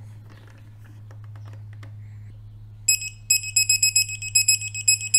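Electronic torque wrench beeping as a spark plug is tightened toward its set torque of 8 foot-pounds: a few faint ticks, then from about three seconds in a loud high beep pulsing rapidly.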